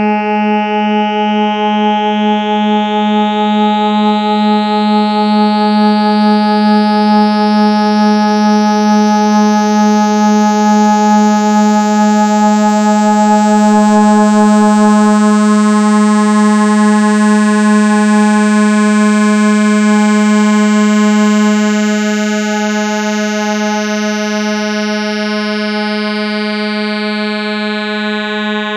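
Modular synthesizer drone holding one low note around 210 Hz, rich in overtones. Its tone gradually brightens to a peak about halfway through, then mellows again. It is slightly wobbly, with one oscillator drifting off the tuning.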